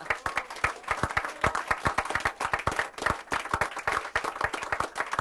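Applause: a crowd clapping, with individual hand claps close by standing out sharply.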